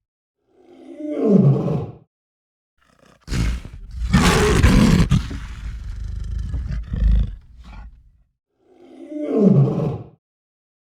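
A lion roaring three times: a short roar that drops in pitch, a long, loud roar, then another short falling roar.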